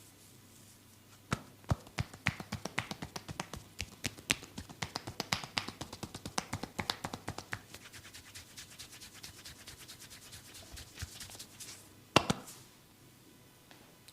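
Hands rapidly tapping and slapping on skin during a massage: a quick run of sharp pats, several a second, easing to softer taps, then one louder slap near the end.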